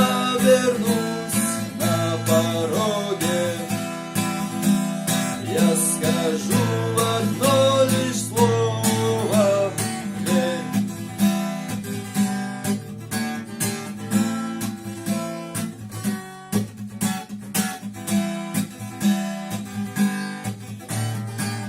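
Strummed acoustic guitar with a voice singing over it for about the first half, after which the guitar carries on strumming alone.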